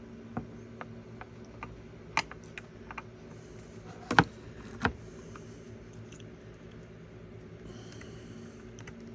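Scattered small clicks and taps of a WD Black M.2 SSD stick and hub parts being handled while the stick is fitted into its slot, with two louder knocks about four and five seconds in. A steady low hum runs underneath.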